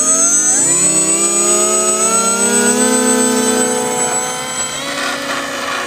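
Twin small electric motors spinning propellers on a foam RC jet, picked up by a camera on the plane itself: a whine that rises in pitch as they spool up over the first few seconds, then holds steady, with more rushing noise about five seconds in.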